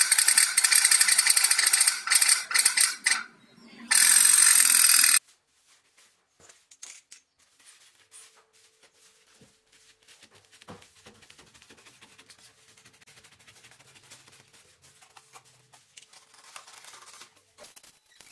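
A loud rushing noise for about the first five seconds, dipping briefly near three seconds and then cutting off suddenly. After it come faint scraping and small clicks of a craft knife cutting through a sheet of polystyrene foam.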